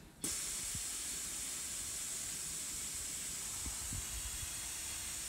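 Air hissing steadily out of a 4WD tyre through its inflation hose as the ARB LINX pressure control deflates it from 50 psi towards a 45 psi target. The hiss starts about a quarter second in.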